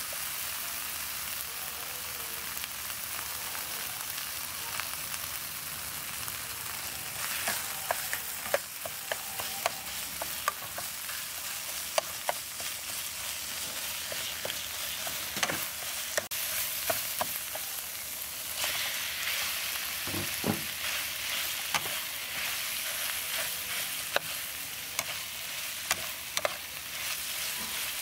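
Chili, lemongrass and garlic paste sizzling in hot oil in a wok, stirred with a metal spatula that scrapes and taps the pan now and then. The sizzle grows louder about two-thirds of the way in, as pieces of boiled cow eyeball meat go into the wok.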